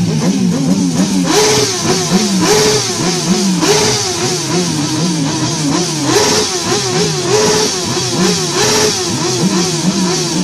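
Motorcycle engines revving up and down again and again, several overlapping, with a regular pulse about every second.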